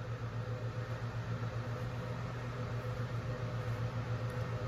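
Steady low hum with a faint hiss from a stationary car, heard inside the cabin.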